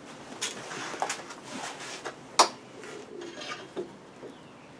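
Metal hand tools being picked up and handled, giving a few scattered clinks and knocks, the loudest about halfway through.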